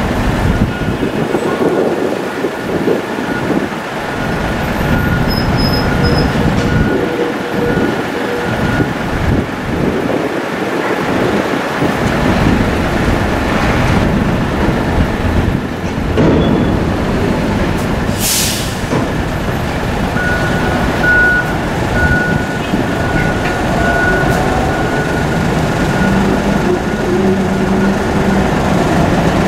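Heavy diesel engines of a container reach stacker and semi-tractor trucks running in a dense, steady rumble. A short sharp air-brake hiss comes about two-thirds of the way through, followed by a repeating high beep for several seconds.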